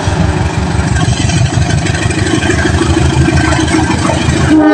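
KAI diesel-electric locomotive engine running loud as the train approaches, a deep, rough rumble. Its horn starts sounding right at the end.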